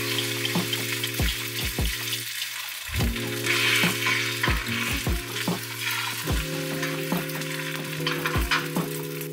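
Beaten egg yolk sizzling steadily as it fries in a hot, oiled rectangular egg pan, with light background music playing underneath.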